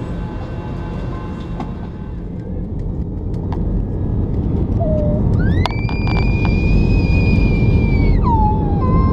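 Steady low rumble of an airliner's engines heard inside the cabin while the plane taxis, growing gradually louder. Midway a high whine rises, holds for about three seconds and falls away, followed by a few shorter falling tones near the end.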